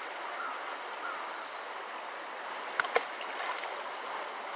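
Creek water rushing steadily, with two sharp knocks close together about three seconds in.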